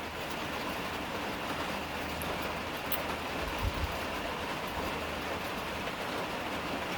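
Steady rushing background noise, with a brief low thump about three and a half seconds in.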